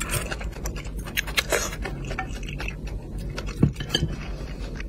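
Close-miked eating of braised fish: a rapid run of wet mouth clicks and chewing noises, with clinks of utensils against a dish and one louder knock about three-quarters through.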